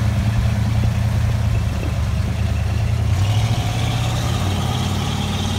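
The 383 stroker V8 in a 1985 Toyota 4Runner runs steadily under load as the truck crawls through a mud hole. A higher whine joins about three seconds in.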